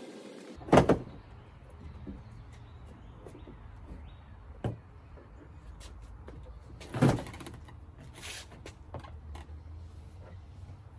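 A few sharp clunks and knocks as a car hood is handled and removed: one just under a second in, another about halfway, and the loudest about seven seconds in, over a low steady hum.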